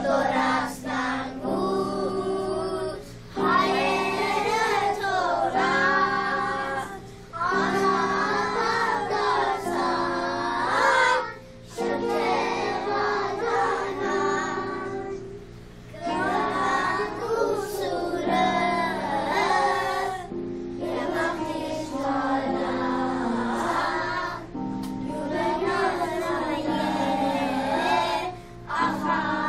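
A group of children singing together in phrases of a few seconds each, over steady instrumental accompaniment.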